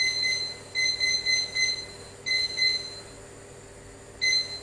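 Electronic kitchen timer alarm beeping: a high-pitched beep in quick runs of three or four, with short pauses between runs.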